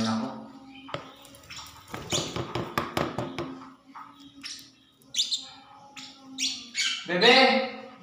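Small pet parrots chirping in short, high calls, with a man's voice briefly near the end.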